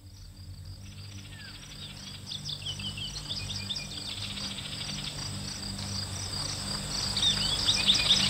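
Birds chirping and insects trilling over a steady low drone, fading in from silence and growing louder: the nature-sound opening of a music track.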